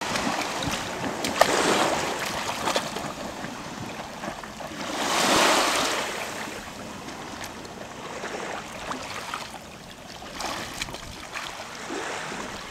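Small waves washing in over the sand at the shoreline, swelling loudest about a second and a half in and again around five seconds in, with lighter lapping and splashing between.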